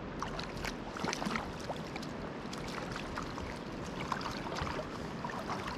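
Shallow river water running and trickling, with many small irregular splashes.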